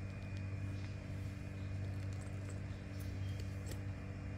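Steady low background hum with a thin, high, steady whine over it and a few faint scattered clicks.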